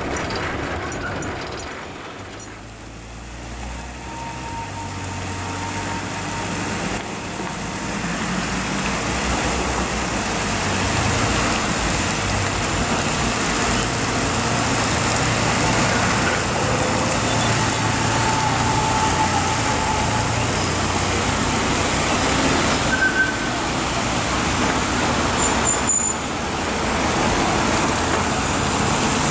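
Steady road traffic noise of cars and vans with their engines running. It fades about two seconds in, then rises back to a steady level.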